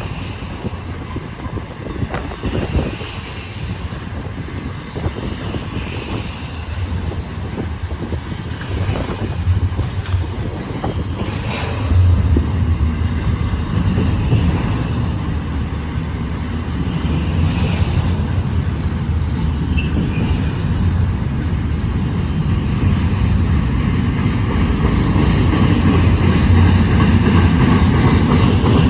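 BNSF freight train rolling slowly past, its wheels clicking over the rail joints over a low rumble that grows louder toward the end.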